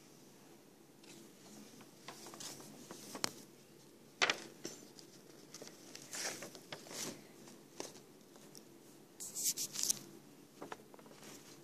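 Scattered rustles and light knocks of paper sheets being handled on a table, a sharp click about four seconds in and a quick cluster of them near the end.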